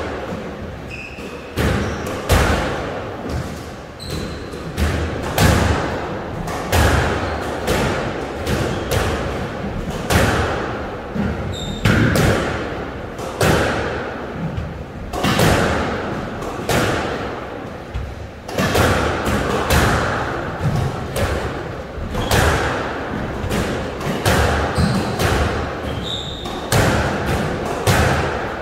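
Squash rally: the ball is struck by rackets and smacks off the court walls again and again in an irregular rhythm, every half second to second and a half, each hit echoing briefly in the enclosed court.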